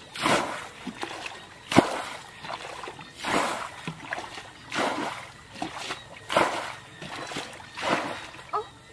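Plastic bucket scooping and flinging muddy water in a steady rhythm, six splashes about a second and a half apart, with a sharp knock about two seconds in: water being bailed out of a shallow pool.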